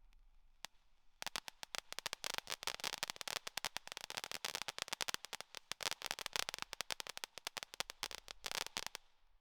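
Consumer firework crackling: a single pop, then a rapid, irregular string of sharp pops for about eight seconds before it stops.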